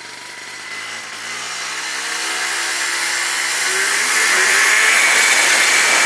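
Two-stroke scooter engine with a Yasuni Z exhaust, pulling away and accelerating, its buzzing pitch rising steadily and growing louder throughout.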